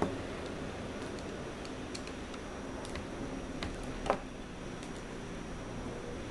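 Small screwdriver tightening the pivot screw of a folding knife: a few faint, scattered clicks of the tool and the knife's metal parts, with one louder click about four seconds in, over a steady low hiss.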